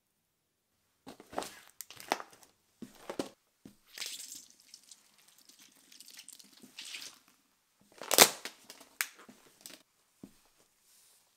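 A sneaker sole crushing small objects: an irregular run of crunches, crackles and squishes, with the loudest crunch about eight seconds in.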